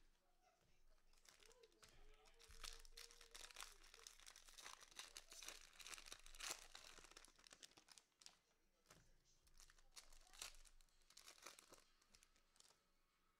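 Faint tearing and crinkling of a plastic cello-pack wrapper of football trading cards being ripped open and the cards pulled out, in many short irregular crackles.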